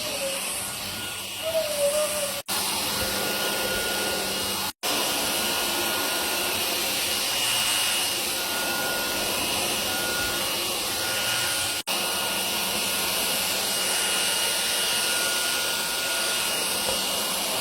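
Cordless stick vacuum running steadily with a faint high whine, broken off for an instant three times.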